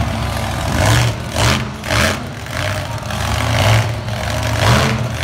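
Monster truck engine revving in repeated throttle surges, rising and falling in pitch, with several louder bursts.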